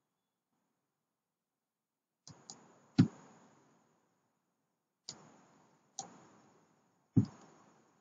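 Sharp clicks of a computer mouse and keyboard keys as a Shift-and-right-click context menu is opened and closed, about six in all and starting about two seconds in. The loudest comes about three seconds in and another near the end, each followed by a short ringing tail.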